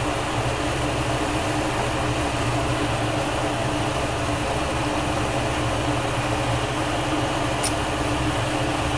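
Steady roar of a glassblower's bench torch flame burning at full heat, over a constant low machine hum.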